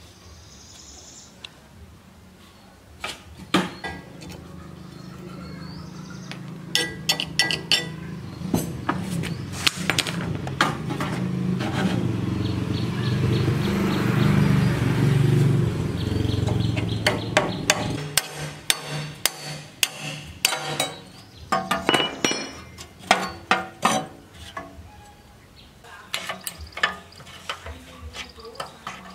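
A large grinding wheel driven by an electric motor runs with a low hum that builds, loudest midway as a steel piece is pressed against the stone and ground, then stops. Metal clinks and taps come before and after as the parts are handled.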